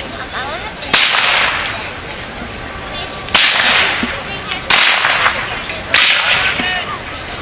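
Four black-powder musket shots in a Civil War reenactment skirmish, each a sharp crack that fades over about half a second, spaced unevenly one to two and a half seconds apart.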